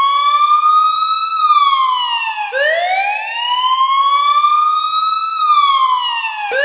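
Wailing siren sound effect: a single pitch slowly rising over about three seconds, then falling more quickly, going round about twice and starting to rise again at the end.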